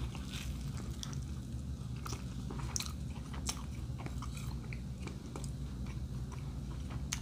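Close-up biting into and chewing a brisket sandwich on a toasted roll: small, irregular crunchy clicks of bread and meat being chewed over a low steady room hum.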